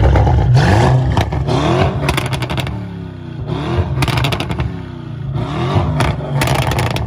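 Straight-piped, decatted 4.0 twin-turbo V8 of a 900 hp Audi RS7 C8 being blipped again and again, each rise in revs falling back. Three bursts of crackling pops from the exhaust come on the overrun, about two, four and six seconds in.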